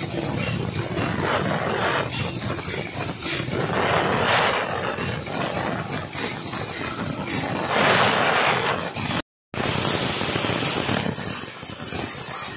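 Handheld plasma cutter cutting carbon steel plate: a harsh, steady hiss of the arc and air jet that swells and eases several times as the torch moves along the cut. It drops out for a moment about nine seconds in, then comes back as a loud hiss.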